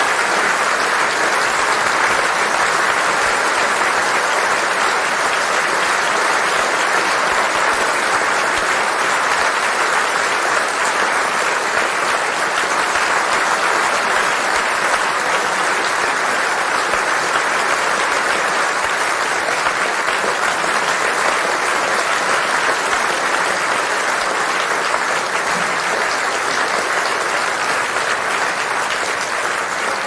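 A large theatre audience applauding steadily in a long final ovation after a performance, a dense wash of many hands clapping at once, easing slightly near the end.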